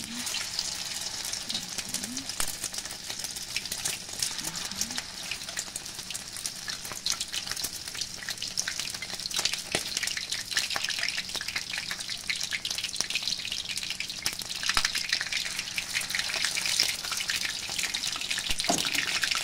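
Battered squash blossoms frying in hot oil in a pan: a steady sizzle full of fine crackles and pops, growing a little louder in the second half.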